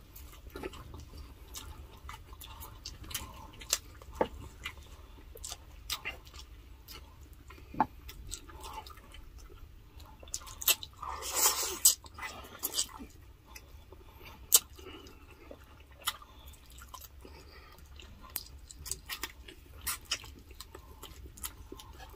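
Close-miked eating sounds: wet chewing, lip smacks and small clicks from two people eating grilled chicken and bangus (milkfish) with their hands. About halfway through comes a louder, longer wet sucking noise as they lick their fingers.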